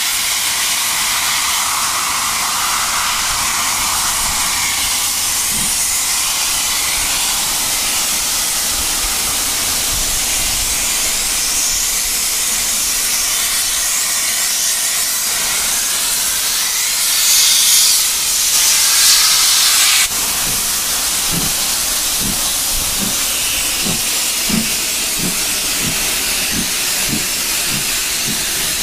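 Steam locomotive hauling carriages, heard from a carriage window: a loud steady hiss of escaping steam. It grows louder for a few seconds past the middle and cuts off suddenly. A regular low beat, about one and a half a second, follows.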